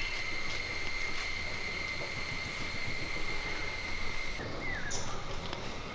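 Forest ambience with a steady, high-pitched insect drone that cuts off abruptly about four seconds in, followed by a few short falling bird chirps near the end.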